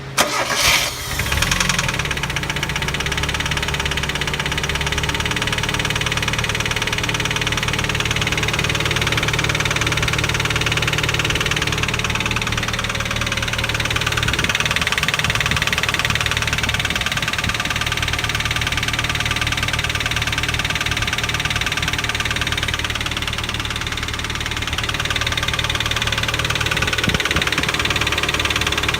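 1990 Mazda Miata's 1.6-litre four-cylinder engine starting and then running steadily with a loud mechanical racket, which the owner calls horrendous. It follows a fresh timing belt, water pump, seal and pulley job. The owner thinks it is too loud to be the hydraulic lifters.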